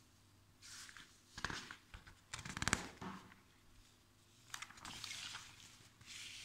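Glossy magazine pages rustling as they are handled and turned by hand, in several short bursts, with a quick run of ticks about two and a half seconds in.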